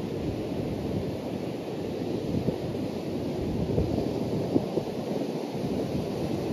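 Wind buffeting the microphone over the steady rush of stormy surf breaking on a sandy beach, a low, even rumble without let-up.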